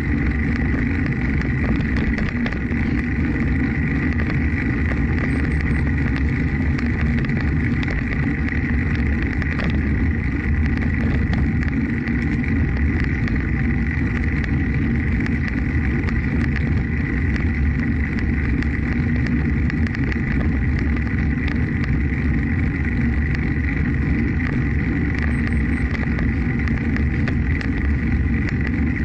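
Steady wind rumble on the microphone of a camera moving along a bridge path, with a faint steady high whine.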